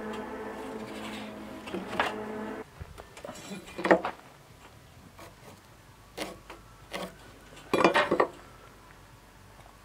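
DeWalt miter saw's motor and blade coasting down after a cut through a rough-sawn 6x6 post, dying out about two and a half seconds in. Then a few scattered knocks and metal clinks as the wooden post is handled and a metal speed square is set against it, the loudest about four seconds in and a cluster near eight seconds.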